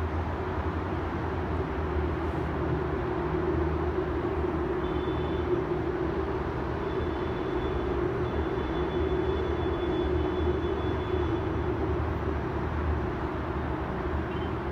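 Distant city traffic heard from high above the street: a steady rumble with a low drone that swells through the middle, and faint high thin tones in the middle stretch.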